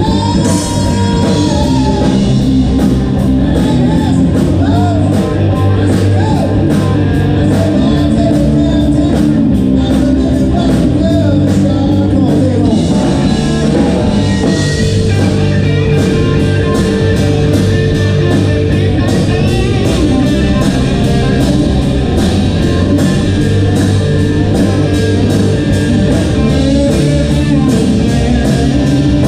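Live rock band playing through amplifiers: electric guitars, bass guitar and a drum kit keeping a steady beat.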